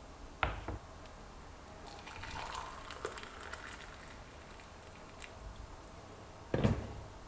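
Just-boiled water from a kettle pouring into a glass mug for a couple of seconds, with a knock as the glass mug is set down about half a second in and a louder knock near the end.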